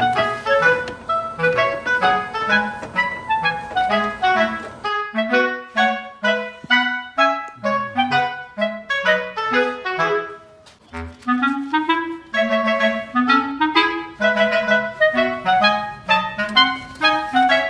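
Background music: a quick melody of short, detached notes on a clarinet-like woodwind over a bass line, with a brief drop-out about ten seconds in.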